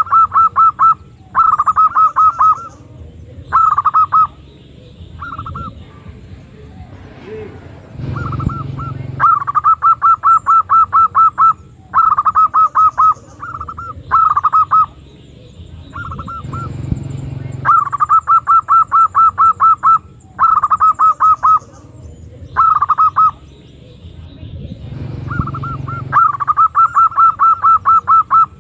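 Female zebra dove (perkutut) lure call: rapid trains of short, clipped notes, about five a second, each train lasting from half a second to three seconds and repeated after short pauses.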